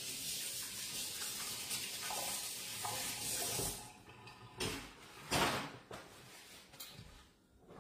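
Kitchen tap running water into the sink, shut off suddenly a little under four seconds in, followed by a few light knocks and clatters.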